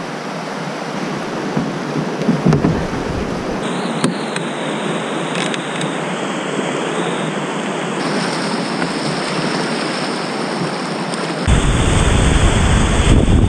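Whitewater rapids rushing: a loud, steady wash of river water that shifts abruptly a few times, with a low rumble joining about two seconds before the end.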